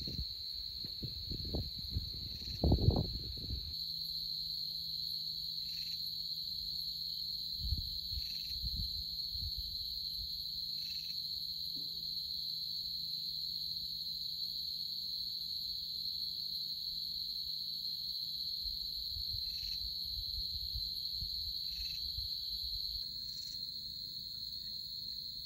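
Steady, high-pitched drone of an insect chorus, with a few short chirps every few seconds. Low bumps and rustles near the start and again about eight seconds in.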